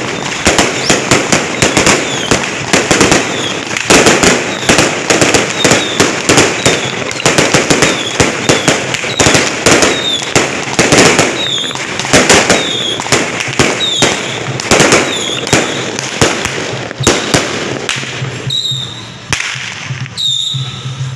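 Firecrackers going off in a rapid, dense barrage of sharp bangs, thinning out to scattered single bangs in the last few seconds.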